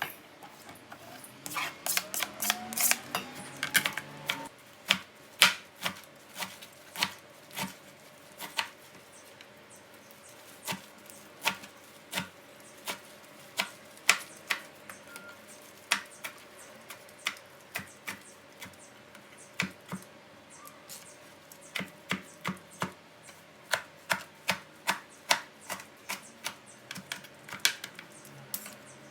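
A knife chopping on a cutting board: single sharp knocks at an irregular pace of about one to two a second, with a quicker run of strokes in the first few seconds.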